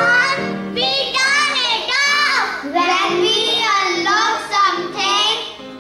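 Children singing, with music underneath and held sung notes.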